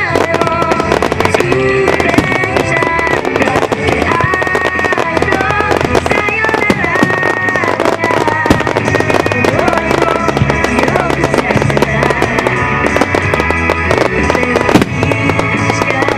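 Firework starmine, a rapid barrage of shells bursting in quick, dense bangs and crackles, over loud music with a melody.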